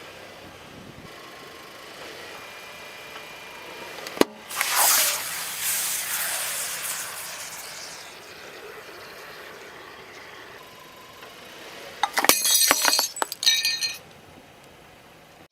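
Objects crushed under a car's tyre: a sharp crack about four seconds in, followed by a hissing rush that fades over a few seconds. Near the end comes a burst of crunching and breaking with glassy clinks.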